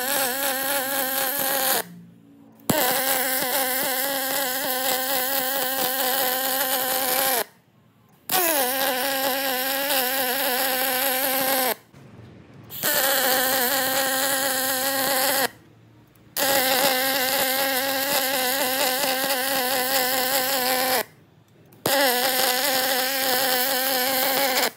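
MIG welder arc running on aluminium: a steady buzzing in six welding runs of a few seconds each, stopping for about a second between runs.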